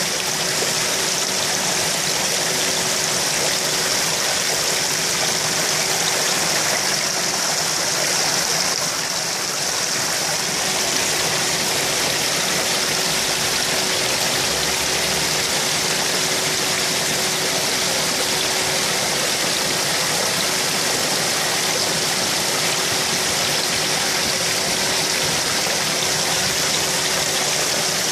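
Steady rushing and splashing of water in a koi pond, with a faint steady hum underneath.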